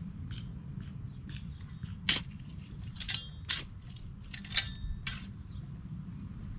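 Sharp metallic clinks and ticks, a few of them ringing briefly, from a garden fork digging potatoes, its tines striking stones in the soil, over a low wind rumble on the microphone.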